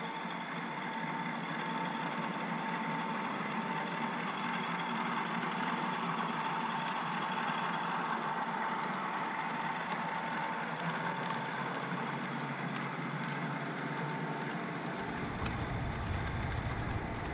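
Model railway diesel locomotive and coaches running on the track: a steady engine-like hum with a constant high whine. A low rumble joins near the end.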